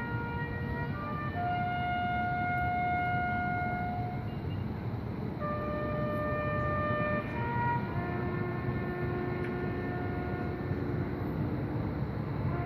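Marching band brass playing a slow melody in long held notes, a single line moving to a new pitch every one to three seconds, over a steady low rumble.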